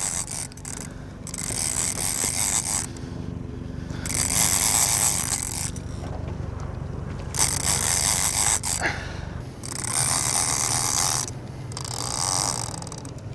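Boat engine running steadily at low revs, under a rushing, swishing noise that swells and fades about every two seconds.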